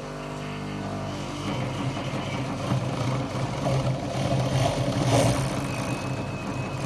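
Yamato professional sewing machine running steadily, stitching while its knife trims the fabric edge.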